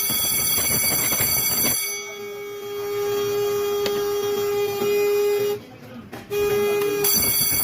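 Conventional fire alarm system sounding. An alarm bell rings for about two seconds, then gives way to a steady buzzer tone that drops out briefly near the end. The ringing bell then returns.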